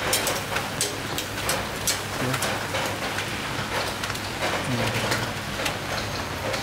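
Rain falling steadily on a surface, an even hiss with many sharp scattered drop taps.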